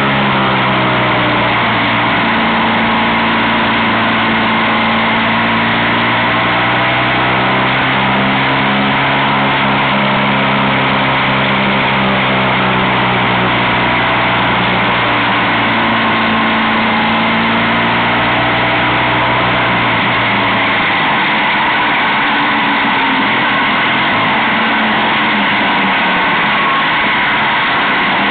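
Motorcycle engine running steadily at road speed under heavy wind rush on the microphone. About twenty seconds in, the engine's low drone drops away as the throttle eases, and near the end its pitch swoops up and down as it revs.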